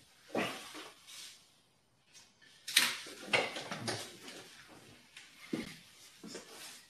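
Irregular knocks and clattering handling noises, a cluster of sharp ones a little under three seconds in being the loudest.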